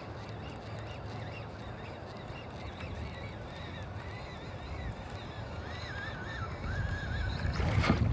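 Wind rumbling on the microphone, with a faint wavering, warbling pitched whine from about three seconds in to about seven seconds. A louder gust or rush of noise comes in near the end.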